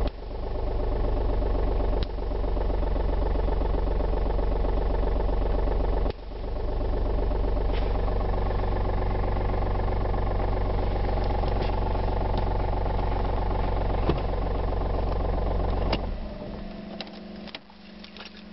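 VW Lupo 3L's three-cylinder 1.2 TDI diesel idling cold, heard from inside the cabin, with a steady engine note. Near the end the engine note drops away suddenly, leaving a quieter steady hum and a few light clicks.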